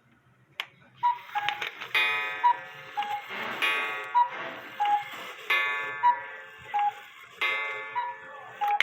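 Cuckoo clock calling the hour: five two-note cuckoo calls, high then low, mixed with loud ringing strikes that die away. The clock is said to need repair.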